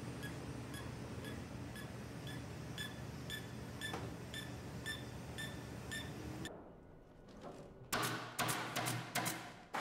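Steady workshop machine hum with a light, regular high ticking about three times a second, cut off abruptly; then, near the end, a pneumatic staple gun firing a rapid series of sharp shots.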